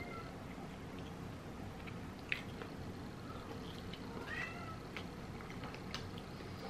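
Domestic cat meowing faintly a few times in the background, short gliding calls that the owner takes as a sign of hunger. A single light click sounds about two seconds in.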